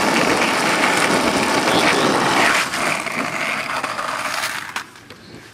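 Skateboard wheels rolling over rough, cracked asphalt, a steady rumbling hiss that weakens about halfway through and dies away near the end, with a couple of short clacks just before it goes quiet.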